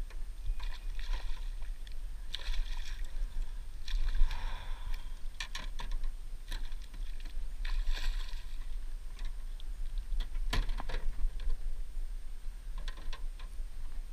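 Largemouth bass splashing and thrashing at the surface as it is netted beside a metal boat, with water swishes and several sharp knocks against the boat. A steady low rumble runs underneath.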